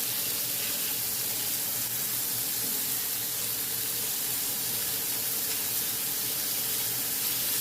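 Ground beef burger patties sizzling steadily on a hot grill as they are pressed flat into smash burgers.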